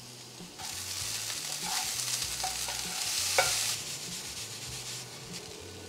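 Cooked millet being stirred in a hot frying pan, sizzling with a hiss from about half a second in to nearly four seconds. A few light clicks of the utensil against the pan come through the hiss.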